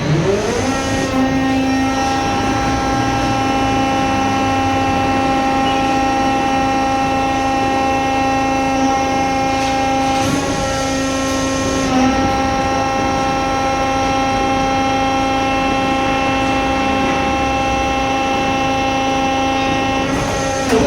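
Hydraulic pump of a metal scrap baler whining steadily under load, one fixed pitched hum, with brief breaks in the tone about ten and twelve seconds in.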